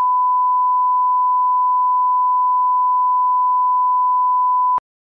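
Steady 1 kHz line-up test tone, the reference tone placed at the head of a broadcast programme tape for setting levels, holding one unchanging pitch and cutting off suddenly near the end.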